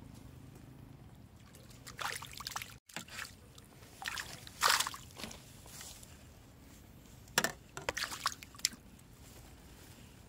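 Water splashing and sloshing in short bursts, in three clusters, the loudest about four and a half seconds in, as a fishing pole's rig goes into the pond and the pole is set in its rest.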